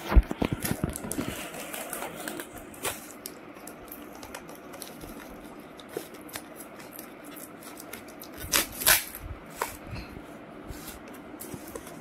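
Fingers picking at and peeling sealing tape off a cardboard food box, with paper rustling and small clicks and taps. A cluster of sharper clicks comes in the first second, and two louder rustles about eight and a half seconds in.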